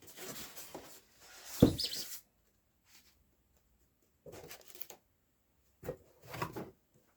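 Handling noise as an old slide projector is taken out of its cardboard box: rustling and scraping of the box, one sharp knock about one and a half seconds in, then a few short bursts of handling.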